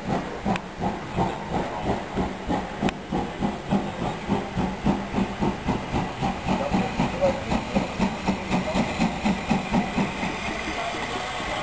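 Steam locomotive working under steam, its exhaust chuffing in an even beat of about three to four a second. About ten seconds in the chuffs fade into a steady, growing rumble as it approaches.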